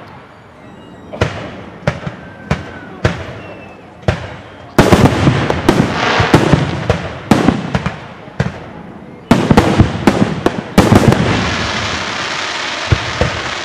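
Fireworks going off: a few separate bangs at first, then two rapid barrages of many bursts with a short gap between them, ending in a steady hiss.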